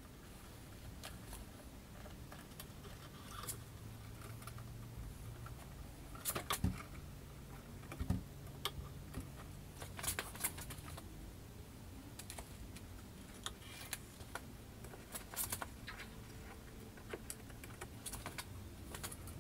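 Irregular small clicks and knocks of metal frame parts and fittings being handled and fitted together while assembling an Ortur Laser Master 3 laser engraver, with a few sharper knocks between about six and ten seconds in.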